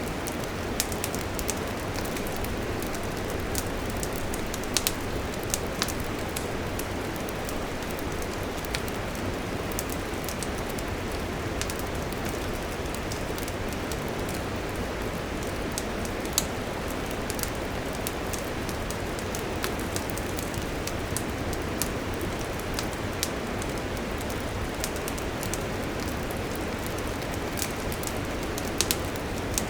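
Wood fire burning with a steady hiss and irregular crackles and sharp pops, a few of them louder.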